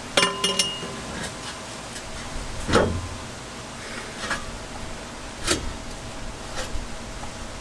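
Metal clinks and knocks as a Cherry Bomb glasspack muffler is fitted by hand onto a truck's exhaust pipe: a quick cluster of clinks with a short metallic ring right at the start, then single knocks about a second or so apart, the loudest about three seconds in.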